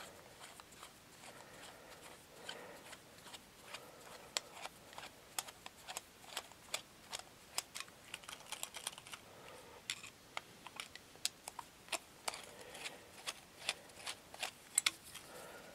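Faint, irregular small metallic clicks and ticks of a screwdriver working in a lawnmower carburetor, turning out its main jet.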